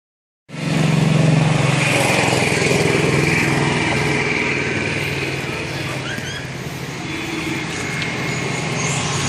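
An engine running steadily with a low, even hum, starting about half a second in. A few brief chirps come about six seconds in.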